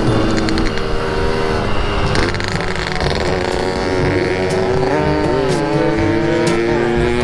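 Yamaha RX-King 135 two-stroke single-cylinder engine running on the move, its pitch falling and rising with the throttle a few times, then climbing steadily near the end as it accelerates.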